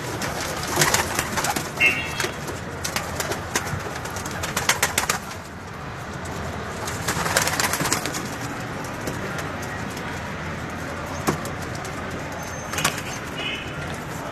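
Domestic pigeons cooing, with many short clicks and rustles scattered through and a couple of brief high chirps.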